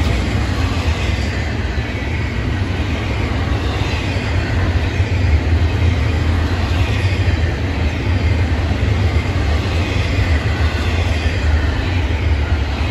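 Double-stack intermodal well cars of a freight train rolling past at speed, their steel wheels on the rails making a steady, loud rumble.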